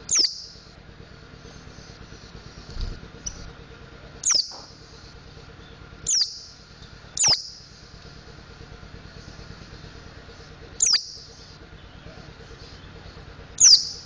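Mountain white-eye (pleci montanus) giving six short, sharp, very high call notes, each sliding quickly downward, spaced irregularly, over a faint steady high-pitched background. A soft low thump comes about three seconds in.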